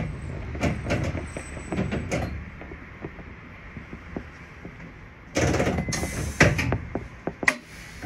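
Tram rumbling with clicks from its wheels as it rolls to a stop at its terminus, then about five seconds in a loud hiss of air with clatter lasting over a second, and a sharp click near the end.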